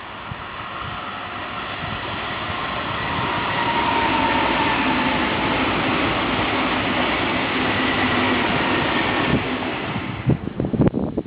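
A train passing the trackside. Its rumble builds over the first few seconds, holds steady with a faint whine in it, then falls away near the end with a few short thumps.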